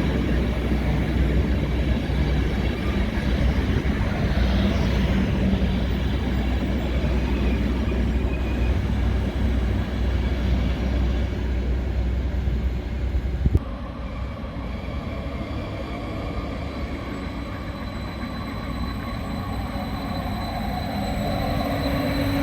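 Trains running at a railway station: a heavy, steady rumble, then an abrupt change about two-thirds through to another train approaching, with a steady whine that grows louder toward the end.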